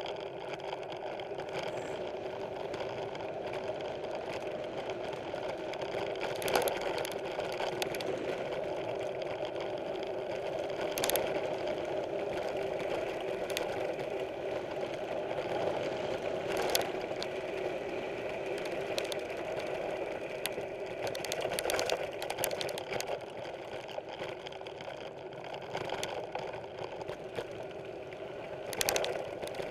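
Mountain bike rolling along a dirt trail: a steady mechanical buzz runs throughout, with a few sharp knocks and rattles from bumps, one near the end.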